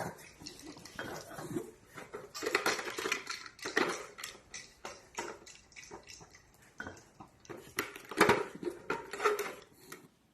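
Irregular clinking and clattering of hard objects: a run of short knocks, busiest about two and a half to four seconds in and again around eight seconds in.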